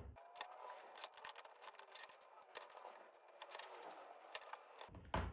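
Faint clicking and rustling of 3D-printed plastic parts being handled, as thin diffuser panels are bent and popped onto the lamp's printed frame.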